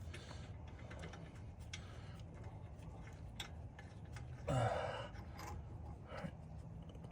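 Hand wrench working a brake caliper bolt loose: scattered light metallic clicks over a low steady hum, with one louder short sound about four and a half seconds in.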